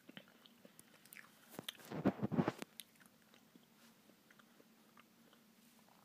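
Close-up chewing and crunching of a spoonful of M&M's Blizzard, the hard candy pieces crackling. The crunching is loudest for about a second near the middle, with faint mouth clicks around it.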